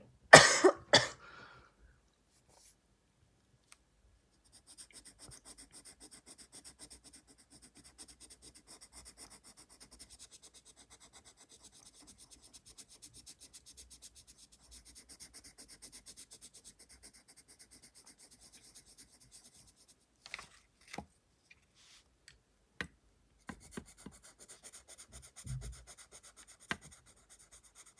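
A loud cough at the start, then a coloured pencil shading on sketchbook paper in quick back-and-forth scratching strokes. The shading stops about two-thirds of the way through, leaving a few light taps, then resumes.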